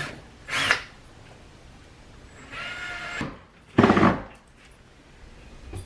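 Power drill driving a screw to fasten a lock plate, run in three short bursts, the last and loudest about four seconds in. The pilot hole is too shallow, and the screw strips.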